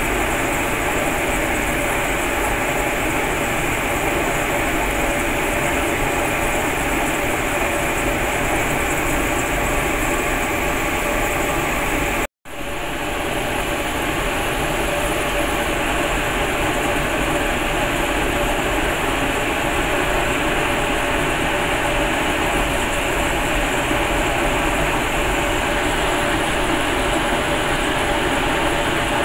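Cremation furnace's burner and combustion blower running steadily with a loud, even rushing noise. It cuts out for a split second about twelve seconds in, then carries on unchanged.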